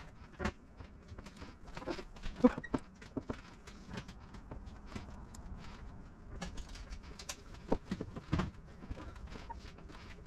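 Orange squeegee pressing and rubbing paint protection film over the front edge of a car hood: scattered soft rubs and ticks, with a few short squeaks.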